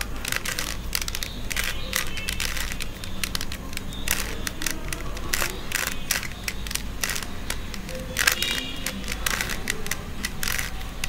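Plastic 3x3 Rubik's cube being turned by hand, its layers clicking and clacking in quick, irregular runs.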